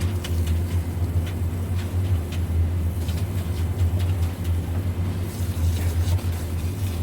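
Diesel engine of a ready-mix concrete truck running steadily with a constant low drone, with faint scattered taps and scrapes over it.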